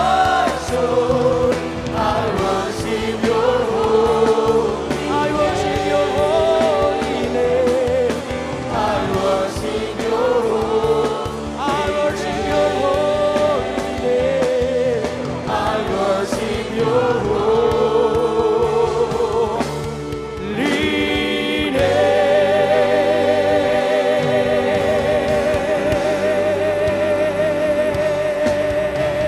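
Gospel worship music: singers over a church band, the melody moving phrase by phrase. About two-thirds of the way through, one long note is held with vibrato over the band.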